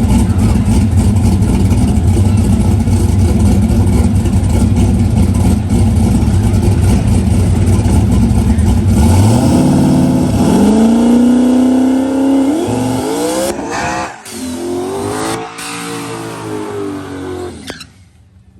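Turbocharged 5.3-litre LS V8 drag car running hard under throttle, then revs climbing in several steps with breaks between them, as in gear changes, before the engine sound falls away.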